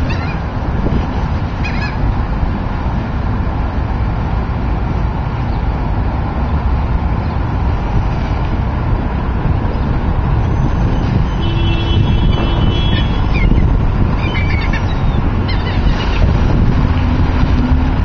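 Wind buffeting the microphone as a steady low rumble, with a few short bird calls from the waterbirds at the bay, mostly in the latter half.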